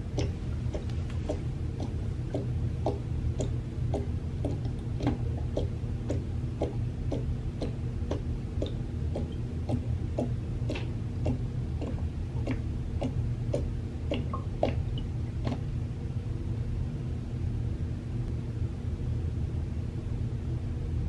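A cat lapping water from the bowl of a gravity-fed water dispenser: a run of small wet ticks about two a second, which stops about 16 seconds in. A low steady hum sits underneath.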